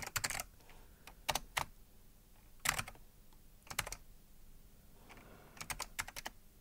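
Computer keyboard being typed on, keystrokes coming in short bursts of a few keys with pauses of about a second between them.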